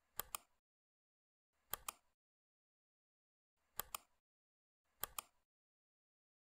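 Computer mouse double-clicked four times, each a pair of quick sharp clicks, spaced a second or two apart.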